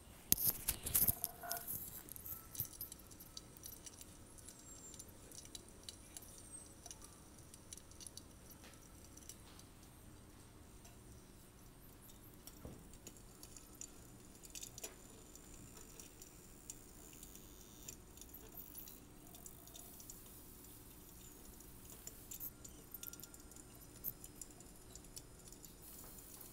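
Faint light jingling and clicking rattle of small hard objects, loudest and densest in the first couple of seconds, then only scattered faint clicks over a low steady hiss.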